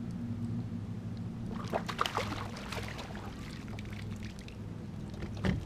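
Water splashing and trickling beside a fishing kayak for a couple of seconds, over a steady low hum, then a single knock near the end.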